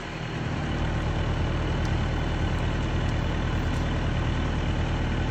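Manitou MT 1740 telehandler's diesel engine running, getting louder within the first second and then holding steady.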